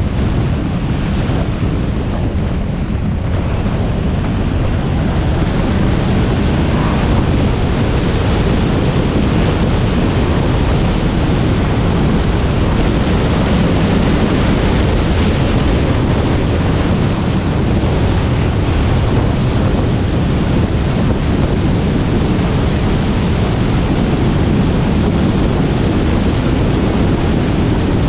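Steady wind noise on the microphone of a camera mounted on the hood of a moving Honda S2000, with road noise from the car underneath, covering most other sound.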